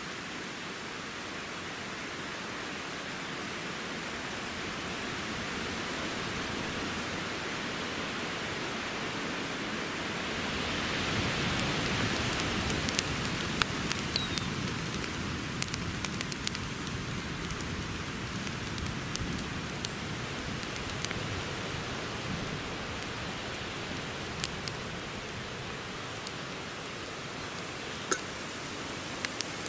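A steady rushing hiss, then a wood campfire burning, crackling with frequent sharp pops and snaps from about a third of the way in.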